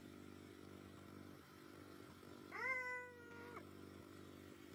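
Small outboard motor running at a steady speed. About two and a half seconds in, a drawn-out pitched call, like a meow, rises over the engine, holds for about a second and falls away.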